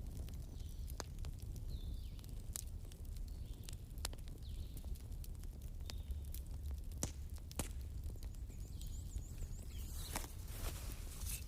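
Bonfire crackling: irregular sharp pops and snaps over a low steady rumble of burning, with a quick cluster of pops near the end. A faint high wavering whistle sounds about three quarters of the way in.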